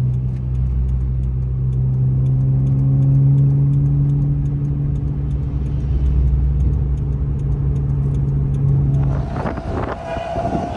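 Car engine running while driving, heard from the car, its note rising slightly a couple of seconds in. It drops away about nine seconds in, with a few knocks and a steady higher tone near the end.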